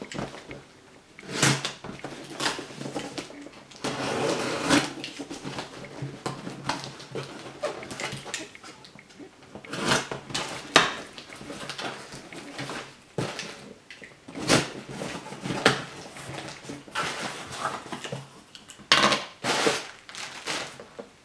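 Cardboard parcel being opened and unpacked by hand: scraping, tearing and rustling of cardboard and paper packing material, in irregular bursts with sharp clicks.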